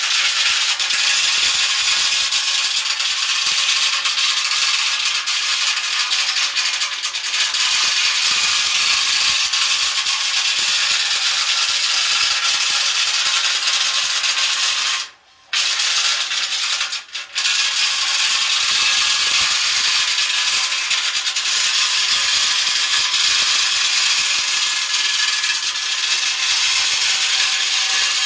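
A length of chain spun on the end of a rod inside the box-section steel frame rail of an International Scout 80, rattling and scraping against the rusty inside walls to knock the rust loose. It runs as a continuous harsh rattle, stops briefly about halfway, falters once more a couple of seconds later, then carries on.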